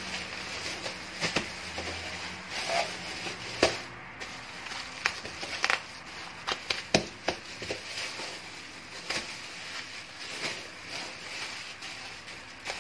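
Thin plastic bag crinkling as hands wrap a ball of dough in it and press it flat, with irregular crackles and soft pats throughout.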